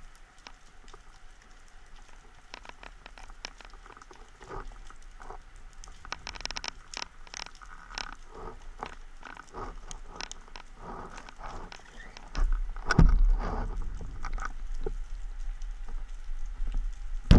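Underwater sound heard through a camera housing: scattered short clicks and crackles, with a louder low rumble of water moving against the housing starting about twelve seconds in.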